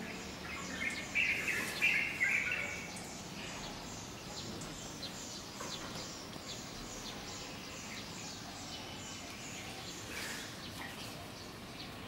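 Birds chirping: a louder run of high chirps about a second in, then many quick faint chirps over steady background noise.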